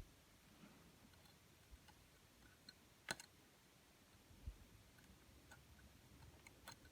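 Near silence with a few faint scattered clicks and ticks; the clearest click is about three seconds in, and a soft low tap comes about a second and a half later.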